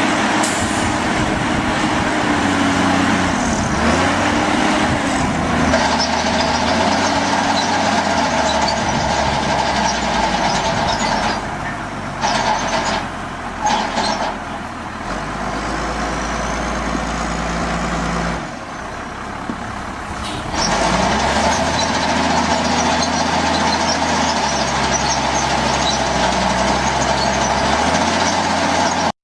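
Heavy machinery engines running under load, the pitch rising and falling as they work, with sudden changes in the sound where one machine gives way to another.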